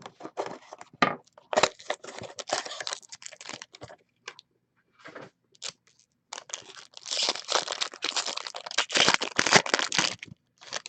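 A trading card box's packaging being torn open and crinkled by hand, in two long stretches of ripping and crackling with a short pause between them.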